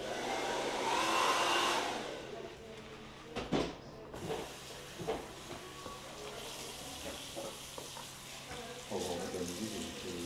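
Water from a salon basin's shower head rushing over hair for about two seconds during a shampoo rinse, then a few light knocks and handling sounds at the basin.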